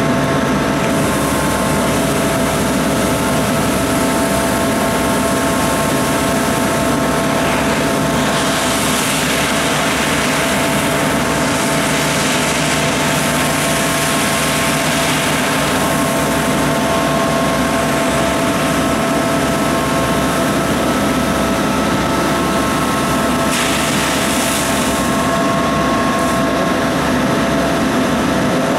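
Rosenbauer Panther 6x6 airport crash tender running steadily, engine and pump giving an even drone with several steady whining tones. A broad rushing hiss from its front water nozzle swells from about eight seconds in to about sixteen, and briefly again near the end.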